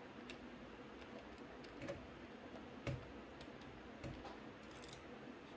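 Faint, scattered light clicks of a small screwdriver and tiny graphics-card backplate screws being handled, a handful in all, the sharpest about three seconds in.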